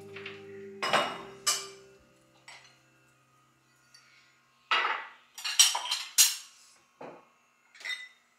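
Dishes and cutlery being handled: a series of sharp clinks and clatters, with a busy cluster of knocks around the middle. A steady low tone dies away about two seconds in.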